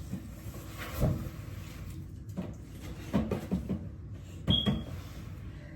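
Handling noise: a few scattered knocks and clatters of objects being picked up and set down, one of them with a brief high metallic ring about four and a half seconds in.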